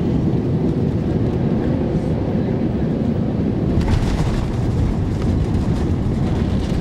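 Steady low rumble of airflow and the Rolls-Royce Trent XWB-84 engines inside the cabin of an Airbus A350-941 as it lands. About four seconds in the noise turns rougher and hissier as the main wheels touch the runway and the spoilers rise.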